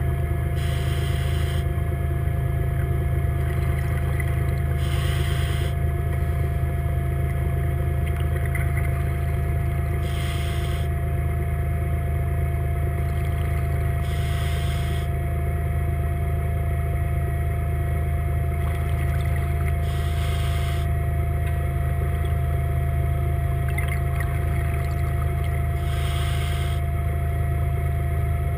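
Seacraft underwater scooter's electric motor and propeller running steadily underwater, a constant low hum with a thin steady whine above it. Six times, every four to six seconds, a short hissing rush of the diver's exhaled regulator bubbles.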